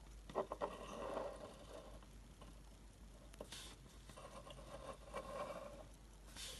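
Faint handling noises: light scraping and rustling with a few soft clicks, as of a small object being moved about on a tabletop.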